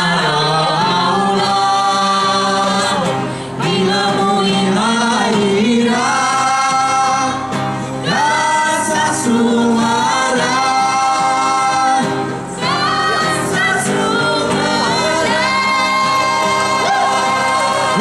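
A mixed group of men and women singing together in harmony into microphones over a stage sound system, in long held phrases broken by short pauses about every four to five seconds.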